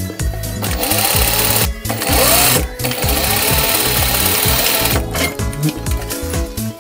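Juki industrial straight-stitch sewing machine running as it stitches two layers of fabric, with short stops and restarts.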